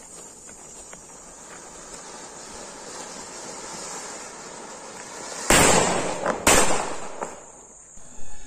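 Anar (ground fountain firework) hissing steadily as it sprays sparks, growing slowly louder, then two loud bangs about a second apart from the paper bomb set off with it.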